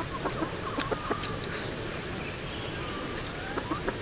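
Domestic chickens clucking in short calls, with a few sharp clicks of chopsticks against bowls.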